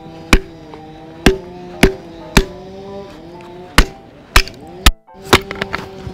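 Camp hatchet with a stick of firewood wedged on its blade, knocked down repeatedly onto a log chopping block: sharp wooden knocks about two a second, with a short pause in the middle, until the stick splits. The blade came unsharpened, with no edge, so it bites into the wood only slowly. Background music plays throughout.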